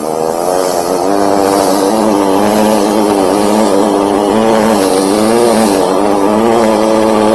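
High-pressure drain jetter running, its water jet hissing out through a rotating nozzle inside a PVC pipe over a steady droning hum; the sound swells over the first second and then holds steady.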